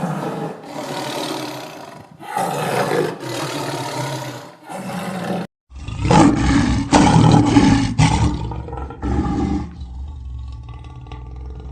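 Large wild animal roaring: several long roars, then, after a sudden break, a second recording of heavier, deeper roaring that eases off into quieter calls near the end.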